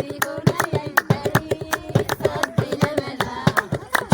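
A voice singing a wavering melody over fast, steady handclaps.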